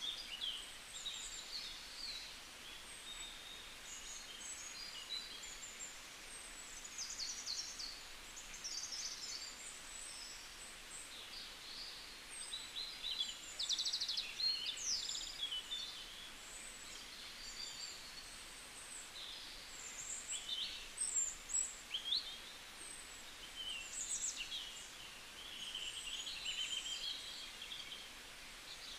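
Small birds chirping and twittering, many short high calls and quick trills one after another, over a faint steady hiss.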